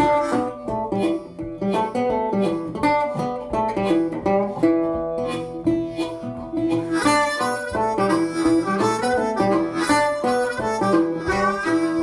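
Instrumental background music: a harmonica melody over plucked strings, with a steady run of picked notes.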